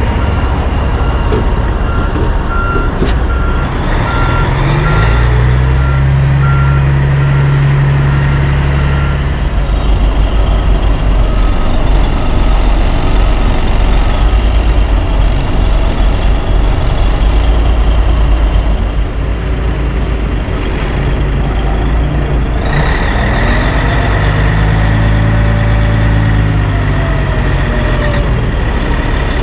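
Diesel engines of Kenworth dump trucks running at a paving job, with a reversing alarm beeping steadily through the first half. The engine revs up around four to six seconds in and again in the second half, when the dump box is tipped up.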